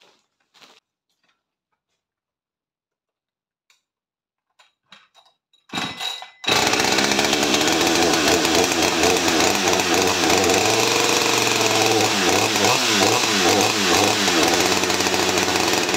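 A few faint clicks, then a Husqvarna 550 XP two-stroke chainsaw starts about six seconds in and runs loud and steady, its engine speed rising and falling in the later seconds.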